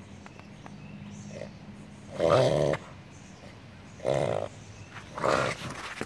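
Beagle reverse sneezing: three loud bouts of noisy, pitched inhaling through the nose, about two, four and five seconds in. Reverse sneezing is a harmless spasm.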